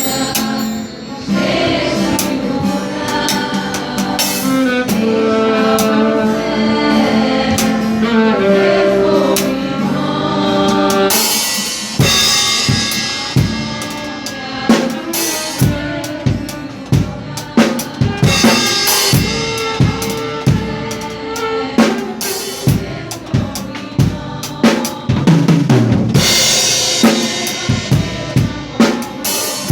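Drum kit played along with a recorded gospel song. For about the first twelve seconds the song's sustained melody is most of what is heard; then the kick, snare and cymbals come in with a steady beat.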